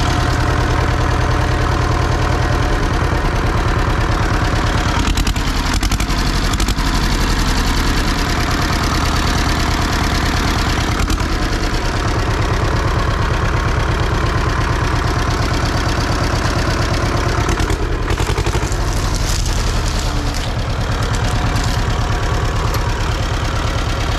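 The engine of a long-abandoned farm tractor running steadily, a loud, even low rumble.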